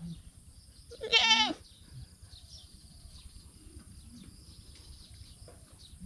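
A goat bleats once, a short wavering call about a second in; the rest is faint background.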